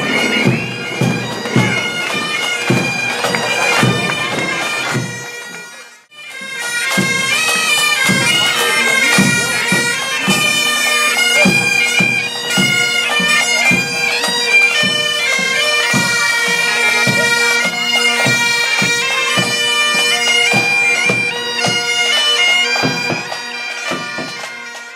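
A marching pipe band of Great Highland bagpipes plays a tune over steady drones, with a regular drumbeat under the melody. For the first six seconds there is drum-led band music, then the sound breaks off briefly and the bagpipes carry on.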